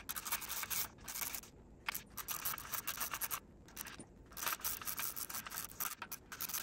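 Hand wrench turning out the 10 mm case bolts on a Porsche M96 engine: fast, scratchy ratcheting clicks in runs, broken by brief pauses about a second and a half, three and a half and four seconds in.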